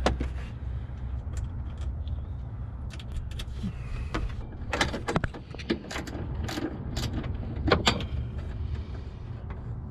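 Scattered metallic clicks and clinks of hand tools on bolts and cable terminals, as an added ground cable is mounted between two ground points, over a steady low hum.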